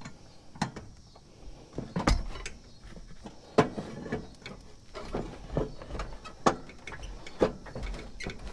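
Irregular metal clinks and knocks as a 9/16-inch socket and a long wrench handle are fitted onto a riding mower's blade bolt under the steel deck.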